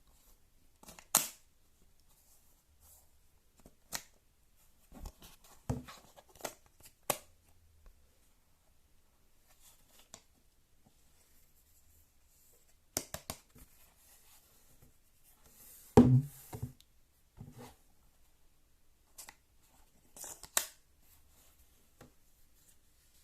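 Hands handling a tablet case and its packaging: scattered sharp taps, clicks and short rustles with quiet gaps between, the loudest a knock with a low thud about sixteen seconds in.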